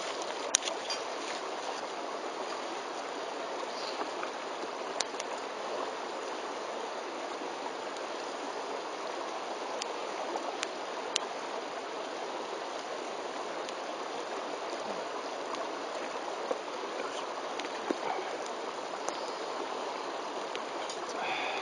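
Wood fire crackling, with a sharp pop every few seconds over a steady rushing noise.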